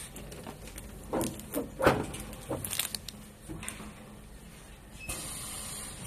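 Curved-surface screen printing machine working: a series of knocks and clatters from its moving parts, the loudest about two seconds in, then a steady hiss starting about five seconds in.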